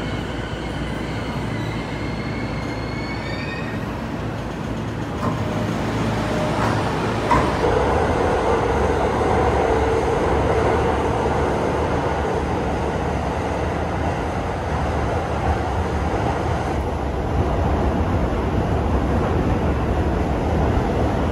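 Inside a Toei 10-300 series train car: the Mitsubishi IGBT-VVVF inverter whine rises in pitch as the train accelerates and fades out about four seconds in. After that comes steady running noise of the wheels on the rails as the train cruises.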